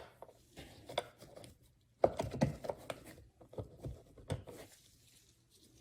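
Phillips screwdriver backing a screw out of a car door panel's pull cup: a run of irregular small clicks and scrapes of tool on screw and plastic, the loudest about two seconds in.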